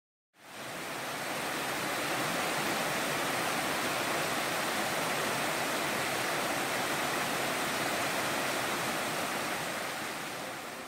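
Mountain stream running over rocks, a steady rush of water that fades in just after the start and eases slightly near the end.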